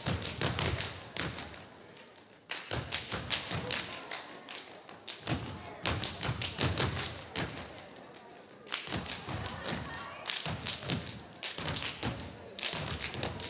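A step team stomping and clapping in unison on a stage floor: fast, rhythmic runs of foot stomps, claps and hand slaps on the body, in bursts of a few seconds with brief pauses between them.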